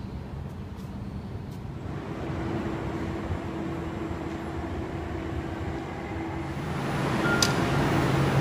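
Sound Transit Link light rail train pulling into an underground station platform: a steady rumble with a hum that grows louder about two seconds in and again near the end as the train arrives, with a brief click near the end.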